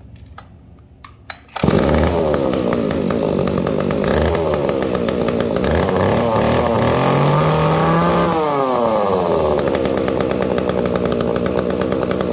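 Echo 31cc top-handle chainsaw's two-stroke engine catching about a second and a half in and idling. It is then revved up in a rising whine and let back down to a steady idle.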